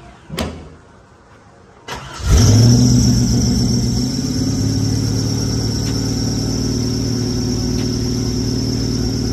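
GM LS1 5.7-litre V8 cranking and catching about two seconds in, flaring up and then settling into a steady idle with a high whine running over it.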